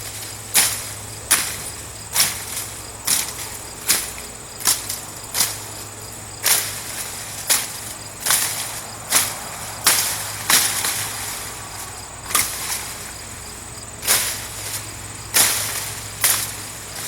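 A thin-bladed machete, forged from a farrier rasp, being swung again and again through tall bamboo-like weed stalks: sharp swishing chops about one every three-quarters of a second, with a short pause a little past the middle.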